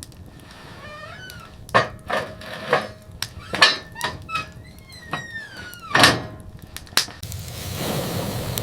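A series of sharp knocks and thuds, about eight in all, with short squeaky creaks between them. Near the end a steady hiss begins.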